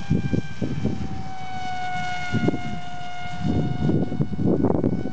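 Dynam Hawksky RC plane's electric motor and propeller whining in flight as it passes, the pitch dropping slightly about a second or two in. Wind buffets the microphone with low rumbling gusts, strongest near the end.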